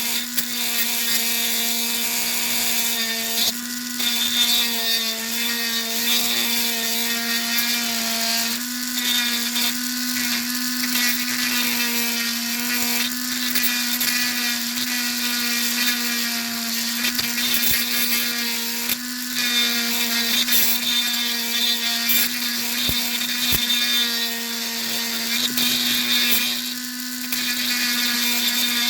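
Small high-speed rotary tool running steadily with a constant whine, shaving away material around a small retaining pin in an airsoft muzzle brake. The tool's pitch and level dip briefly a few times as it bears on the work.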